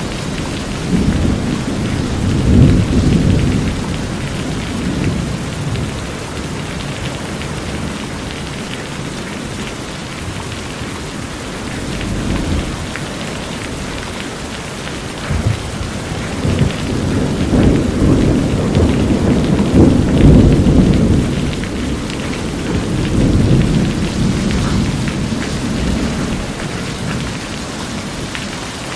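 Steady rain drumming on a corrugated metal house roof. Low rolls of thunder swell about two seconds in and again from about sixteen to twenty-five seconds in.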